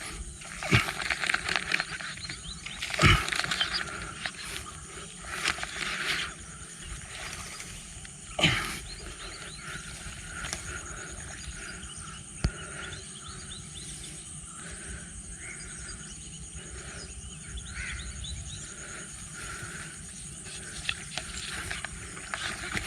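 Forest ambience with insects calling steadily at a high pitch. Two loud sweeps fall sharply in pitch, about three seconds and eight and a half seconds in.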